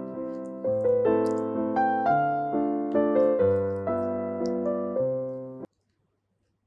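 Intro music: a gentle piano melody of single held notes, stopping abruptly near the end.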